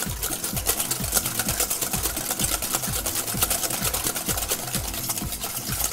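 Whisk beating an egg and cream mixture in a stainless steel bowl: fast, even strokes of scraping and clinking against the metal, about five a second.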